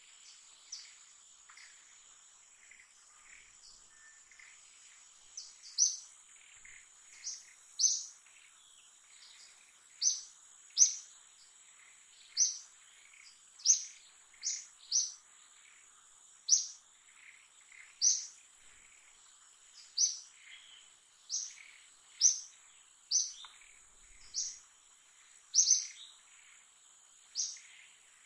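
Forest ambience: a steady high-pitched insect drone, with a bird joining in about five seconds in. The bird repeats a short, sharp, high chirp roughly once a second or so.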